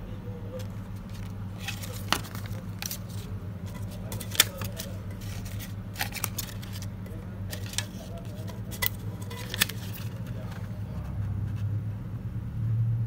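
Paper euro banknotes handled and flexed, crackling and snapping sharply a dozen or so times, over a steady low hum.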